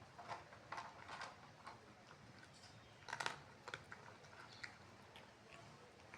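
A cat chewing and eating, faint irregular crunching clicks with a louder cluster about three seconds in.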